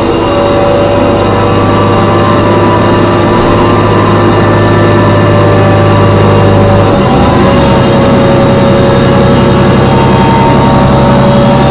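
Inside a New Flyer D40LF transit bus with a Cummins ISM diesel and Voith transmission: a loud, steady, high-pitched screech of several tones rides over the low engine note, which shifts pitch about seven seconds in. The uploader puts the horrible screeching down to the brakes or the transmission.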